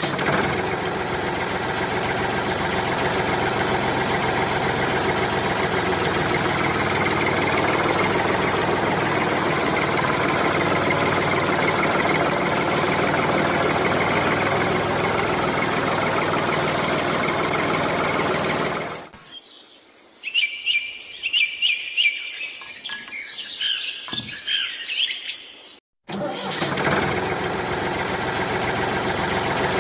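A steady engine-like running sound from a mini tractor. About two-thirds of the way in it breaks off for several seconds of birds chirping, then the running sound resumes.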